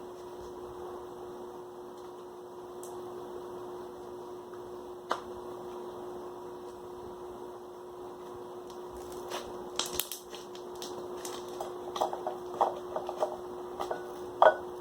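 A spoon clicking and scraping against the pot while slime is mixed. After one lone click about five seconds in, it turns into a run of quick taps and knocks over the last few seconds, over a steady low hum.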